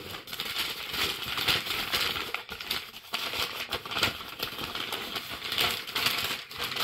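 Packaging rustling and crinkling as vacuum cleaner parts are pulled out of their box and wrappings, with a steady run of small crackles and knocks.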